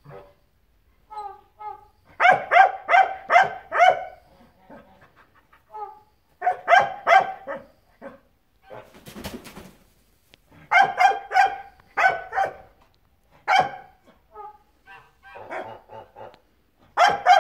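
Domestic goose honking in bursts of four to six short, loud calls every few seconds, with quieter single calls in between.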